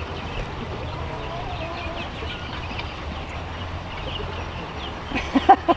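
Domestic fowl calling: a quick run of three or four short, loud calls near the end, over faint twittering of small birds and a steady low rumble.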